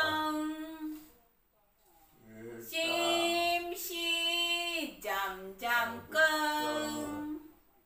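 A woman singing a simple song in Taiwanese unaccompanied, holding long notes, with a pause of about a second and a half near the start.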